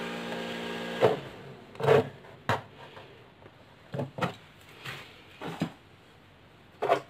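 Small 12-volt DC cooling fan running with a steady hum, cut off suddenly about a second in as it is disconnected. Then a string of knocks and clicks as the fan and its leads are handled and lifted off the wooden desk.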